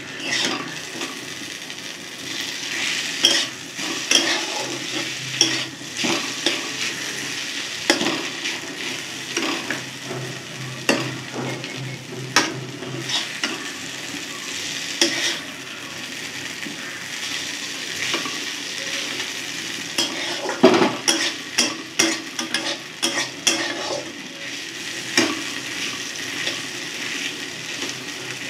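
Okra and onion frying in a kadhai, with a spatula stirring and scraping against the pan in irregular strokes over a steady sizzle.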